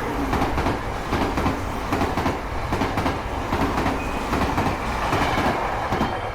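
Added train sound effect: a railway train running steadily, with the clatter of wheels on rail joints.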